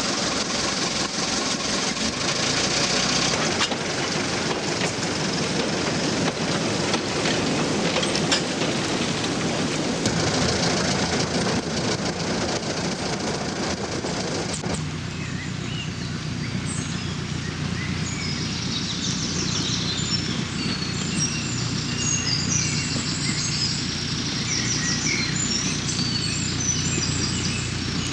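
A 15-inch gauge miniature railway diesel locomotive running with its carriages, giving a steady rumble and rattle. About fifteen seconds in, the sound changes abruptly to birds chirping over a low steady hum.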